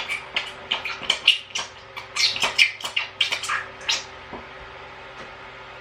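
Old oil and air being forced out of an RC shock body: a quick, irregular run of short wet squirts and splutters for about four seconds, then they stop.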